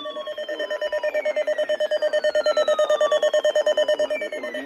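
Electronic alarm sound: a rapidly pulsing beep tone, about ten beeps a second, that swells louder toward the middle and fades near the end, over repeating whistle-like tones that slide downward in pitch, each over about three seconds.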